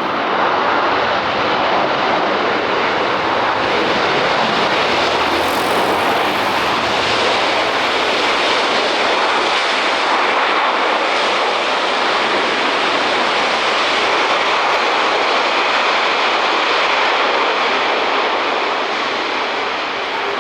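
Airliner's jet engines at takeoff thrust: a loud, steady rushing noise that eases off slightly near the end.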